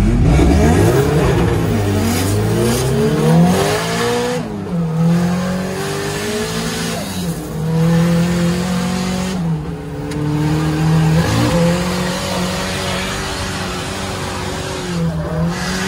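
Drift car's engine heard from inside the cabin, revving up hard over the first few seconds and then held high with a few brief lifts, over tyre squeal as the car slides.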